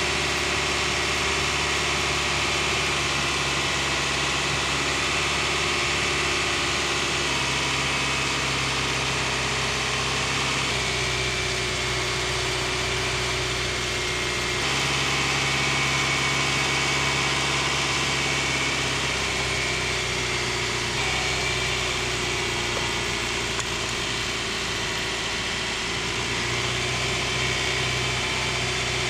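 2015 Cadillac ATS 2.0T's turbocharged four-cylinder direct-injection engine idling steadily while CRC intake valve cleaner is fed into its intake. The idle tone shifts slightly a few times.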